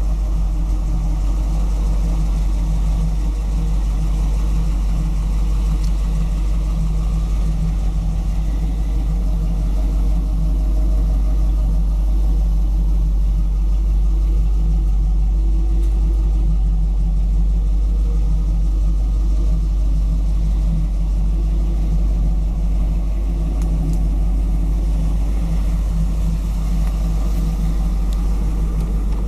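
1974 Ford Bronco engine idling steadily through its new exhaust, a low, even rumble with no revving.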